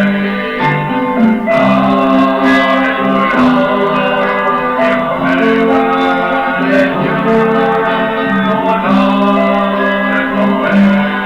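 Song from a 1972 French stage-musical record: voices singing with instrumental accompaniment including guitar, over a steady beat.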